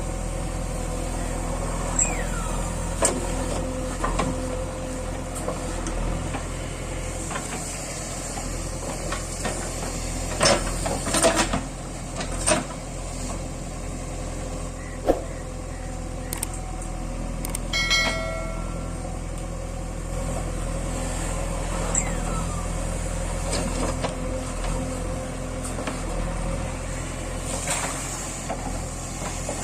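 JCB 3DX Super backhoe loader's diesel engine running steadily, with sharp knocks and clanks scattered through it and a cluster of them about ten to thirteen seconds in. A short pitched tone sounds briefly about eighteen seconds in.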